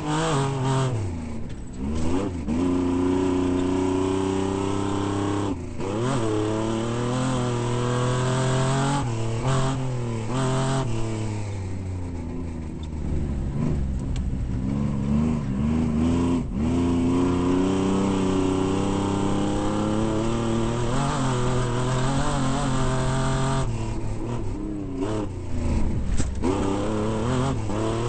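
Off-road race truck engine running hard, its revs climbing and falling through the gears, with several brief dips where it shifts or lifts off before pulling again.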